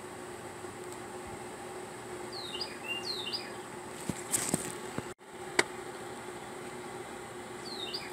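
A small bird chirps, a pair of short falling notes a few seconds in and another near the end, over a steady hum. A few sharp clicks and knocks come around the middle, the loudest a single click just past halfway.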